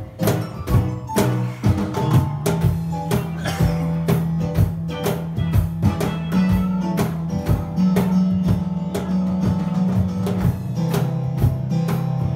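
A small live band playing: drum kit, electric guitar and keyboard, with a steady beat over held low notes.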